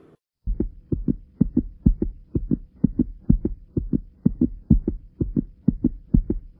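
Deep thuds in close pairs like a fast heartbeat, about two pairs a second, over a faint steady hum, starting about half a second in. This is a heartbeat-style beat laid on in the edit, not the parachute or any aircraft.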